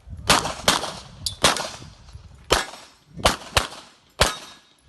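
A string of 9 mm pistol shots from a Taurus TS9 during a timed stage, about seven shots, several fired in quick pairs with short pauses between targets.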